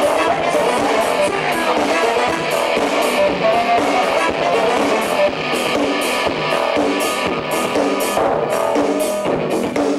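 Live band playing loud industrial rock with drums and guitar over a steady beat, recorded from the crowd on a Hi8 camcorder microphone and thin in the bass.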